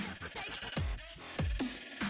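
Electronic background music with a beat, its deep bass notes sliding downward about three times.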